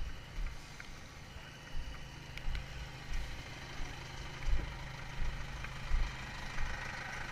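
Steady low hum of an engine running at idle, with dull thumps about every two-thirds of a second from the footsteps of someone walking with the camera.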